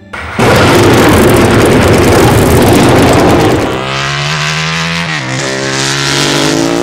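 Ducati 749S's L-twin engine run hard through an unbaffled exhaust with slash-cut tips, very loud. A rough blare for about three seconds gives way to a clearer engine note that climbs in pitch, drops briefly about five seconds in, and climbs again.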